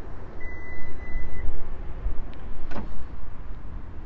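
Ford F-150 Lightning's powered frunk lid closing: its warning beep sounds as one steady high tone lasting about a second near the start, over a low background rumble. A short click follows a little past halfway.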